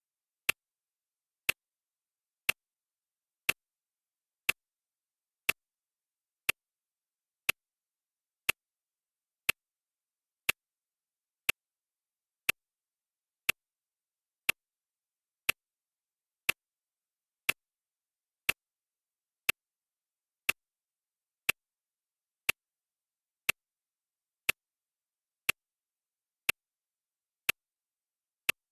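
Clock ticking sound effect: sharp, even ticks once a second.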